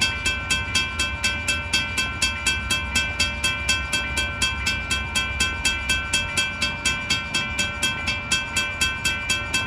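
Railroad grade-crossing bell ringing rapidly and evenly, about four to five strikes a second, over a low rumble.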